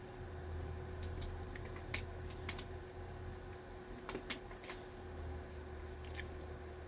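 A handful of light, irregular clicks and taps, bunched around the middle, over a steady low hum.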